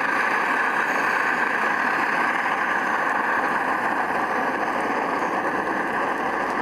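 Gasoline camping stove (LSO 618/619) burning with its valve open full: a steady, even rushing burn that sounds like a little rocket.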